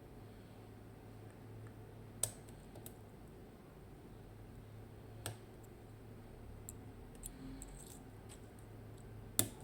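Lock pick and tension tool working in a Mottura C55 dimple-lock cylinder: a few scattered sharp metallic clicks, the loudest near the end, as pins are probed and set.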